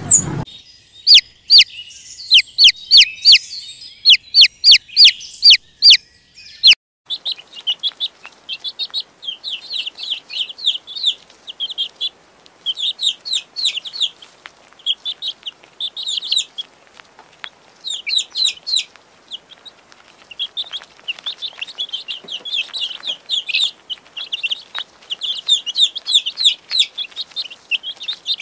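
Domestic chicken chick peeping, high and rapid, in quick continuous runs. For the first few seconds, before the peeping, a series of loud, sharp, high chirps comes about two a second.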